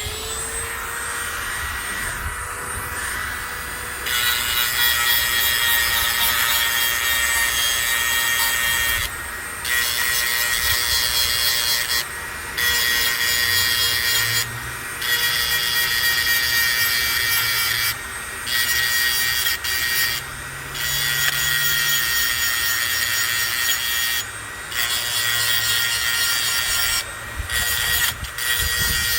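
A high-speed grinding stone sharpening the steel cutting teeth of a hedge trimmer blade. The tool's motor whines steadily, and from about four seconds in the stone grinds against the metal in repeated passes of one to three seconds, each broken by a brief pause.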